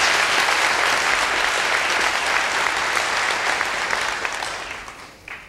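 A large auditorium audience applauding, the clapping fading away near the end.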